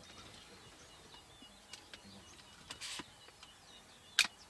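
Birds chirping at dawn over a faint steady hiss of open country, with a short rushing burst of noise about three seconds in and a sharp, louder burst near the end.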